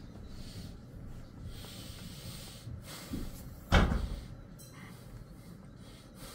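A single loud knock about three and a half seconds in, with a fainter knock just before it.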